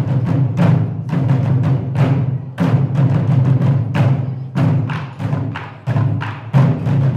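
Ensemble of Korean barrel drums beaten with sticks in a fast, loud rhythmic pattern, the strokes ringing deep. The playing thins to a short lull a little before six seconds in, then picks up again with a loud accented stroke.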